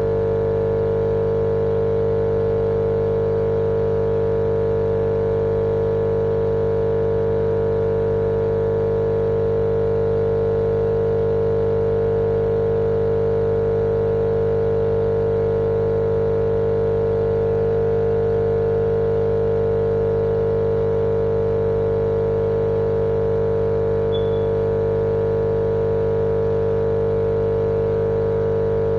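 Steady, unchanging machine drone with a strong hum, used as a white-noise sound to lull a baby to sleep.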